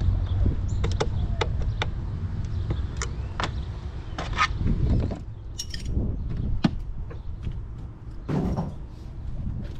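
Irregular metallic clicks, clinks and knocks of hand tools and engine parts being handled in a car's engine bay, over a steady low rumble.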